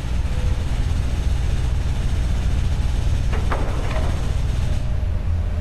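Steady low rumble of railroad equipment, from original Super 8 film sound, with a brief faint pitched sound about three and a half seconds in.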